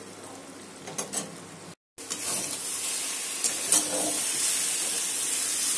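Bottle gourd and prawn curry sizzling in a metal kadai as it is stirred with a spatula that now and then clicks and scrapes against the pan, the curry's water being cooked off. After a short break about two seconds in, the sizzle is louder and steady.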